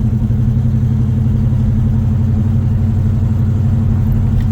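Freshly rebuilt Pontiac 400 V8 in a 1970 GTO running steadily under light throttle as the car drives along, with an even low engine note that neither revs up nor drops away.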